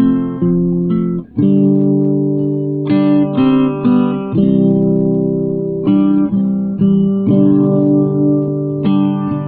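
Guitar music: chords played one after another, each ringing for about a second, with a brief gap a little after a second in.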